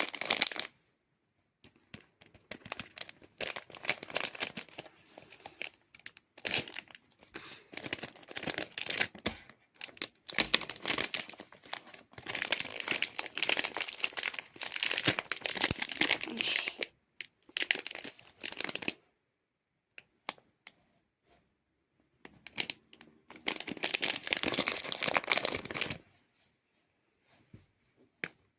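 Blind-box toy packaging being torn open and crinkled by hand, in bursts of tearing and rustling, with a pause about two-thirds of the way through before a last stretch of crinkling.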